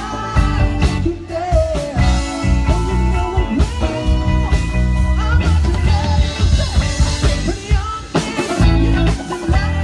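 A rock band playing live: a man singing lead over electric guitar, keyboards and drums.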